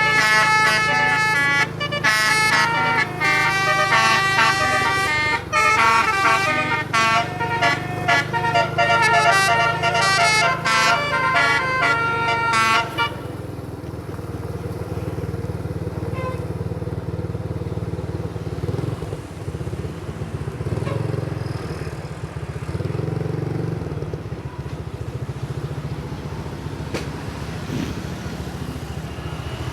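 Telolet multi-tone bus air horn playing a quick tune of changing notes, stopping about 13 seconds in. A steady low engine rumble carries on underneath and after.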